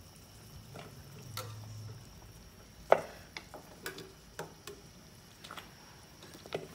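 Metal tongs clinking against a stainless steel stockpot and bowl as boiled pork pieces are lifted out and dropped into the bowl: scattered clinks and knocks, the loudest a little under three seconds in.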